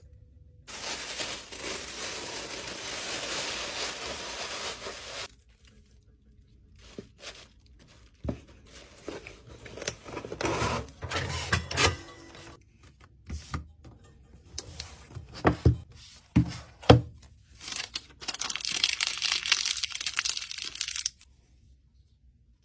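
Paper packing materials being handled: tissue paper and paper tape rustling, crinkling and tearing in two long stretches, with a few sharp knocks in between.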